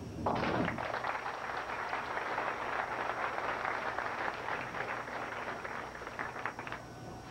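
A bowling ball crashes into the pins, and then a crowd applauds for about six seconds, thinning out near the end.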